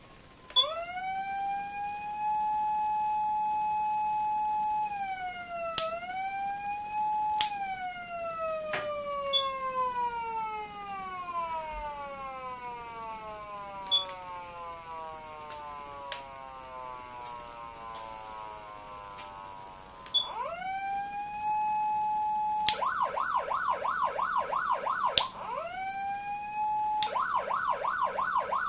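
Patlite SAP-500BK-PV electronic siren amplifier sounding a motor-siren-style wail. It rises to a steady held tone, dips and climbs again, then winds down in a long slow fall. It then rises once more and switches to a fast warble of about three cycles a second, broken briefly by the steady tone, with a few sharp clicks between modes.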